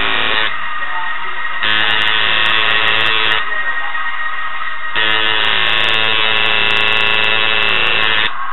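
Tattoo machine buzzing in short runs as it is switched on and off. It stops about half a second in, runs again for under two seconds, then for about three seconds until near the end.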